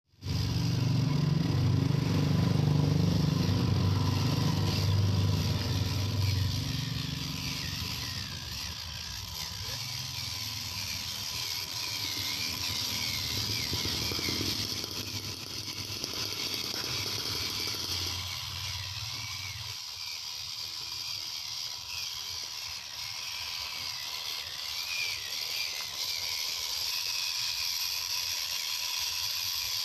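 A scale RC car's electric motor and gearbox whining as it drives, the pitch wavering up and down with the throttle. Under it runs a low rumble, loudest in the first several seconds, which dies away about two-thirds of the way through.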